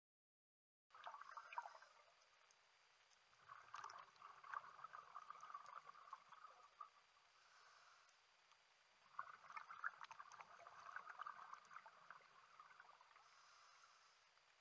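Scuba diver's exhaled air bubbles heard underwater: three gurgling, crackling bursts of bubbles, about a second in, around four seconds in and around nine seconds in, each a few seconds long, with quieter gaps between breaths.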